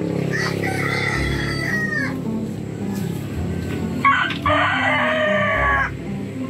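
A rooster crows twice, each crow lasting about a second and a half; the second, about four seconds in, is louder. Background music plays underneath.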